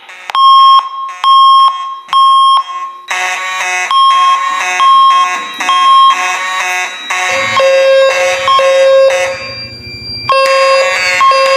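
Electronic fire alarm tones beeping loudly and evenly, a little under twice a second. About three seconds in, more alarm tones layer in and the pattern grows denser. A lower pulsing tone follows, then a short dip just after ten seconds before the beeping resumes.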